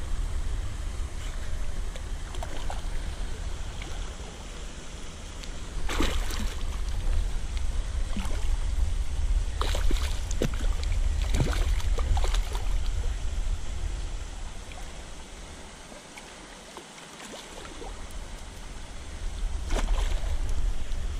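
Wind rumbling on the microphone, with a large golden dorado splashing and thrashing at the surface several times, the biggest splash about six seconds in and a cluster around ten to twelve seconds.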